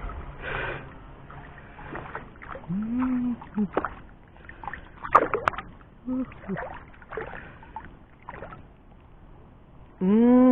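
Water sloshing and splashing in irregular short bursts as someone wades in a shallow reservoir, with a couple of brief faint voice sounds.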